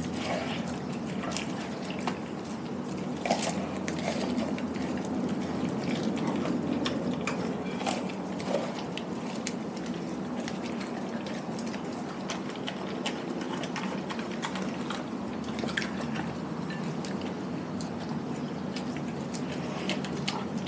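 A Doberman licking and chewing a whole raw chicken: wet licking and mouthing sounds with scattered sharp clicks, over a steady low hum.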